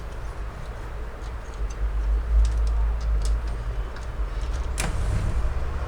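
HP LaserJet P2055dn laser printer running, a steady low rumble with scattered light clicks and a sharper click near the end.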